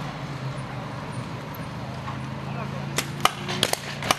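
Paintball markers firing: a quick run of sharp pops starting about three seconds in, over a steady low engine drone.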